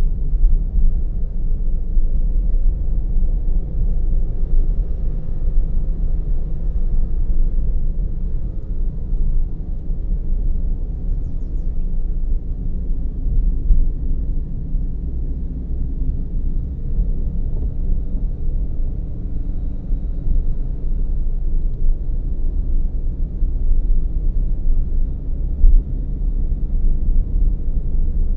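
Steady low rumble of a car driving, engine and tyre noise heard from a camera mounted inside the car, with a brief thump near the end.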